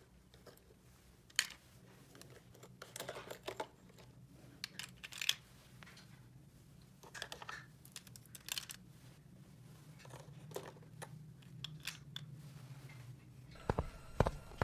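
Hands handling toy packaging and small plastic toy pieces: scattered crinkles, rustles and light clicks over a faint steady hum, with a quick run of sharper taps near the end.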